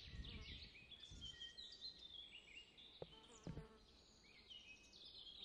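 Near silence: faint outdoor ambience with many quick, high chirps and a few soft low thumps.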